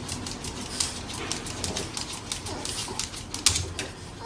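A French bulldog's claws clicking and scratching against a wooden TV cabinet as it stands and paws at the screen: a run of irregular light clicks over a low background hiss, with one sharper click about three and a half seconds in.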